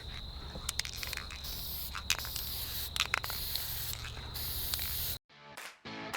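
Aerosol spray paint can hissing in several short bursts of spray, with sharp clicks between them. Guitar music cuts in about a second before the end.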